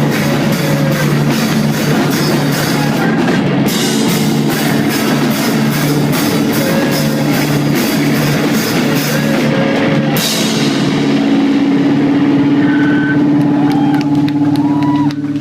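Loud rock band playing live: pounding drum kit with crashing cymbals under distorted electric guitar. About ten seconds in the drums drop out and a single held guitar chord rings on, cutting off at the close of the song.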